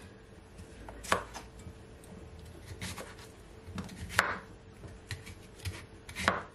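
Kitchen knife chopping cucumber on a wooden cutting board: a handful of separate sharp knocks of the blade through the cucumber onto the board, about a second or so apart, the loudest about a second in, about four seconds in and near the end.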